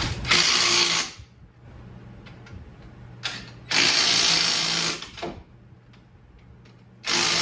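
Impact gun with a 17 mm socket run in repeated bursts, driving the caliper bracket bolts: three pulls of about half a second to a second and a half, with one short blip in between.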